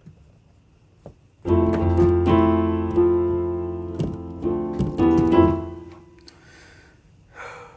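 A 1995 Yamaha Clavinova CVP-79 digital piano playing a short run of sustained chords. The chords start about a second and a half in and die away about six seconds in.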